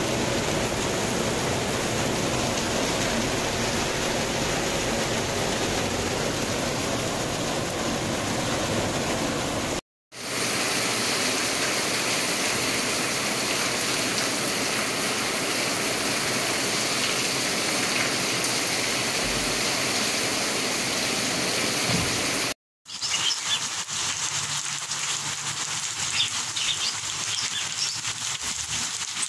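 Rain falling steadily, a dense even hiss, in three stretches split by two brief silent cuts. In the last stretch the hiss is thinner, with scattered drips and patter on top.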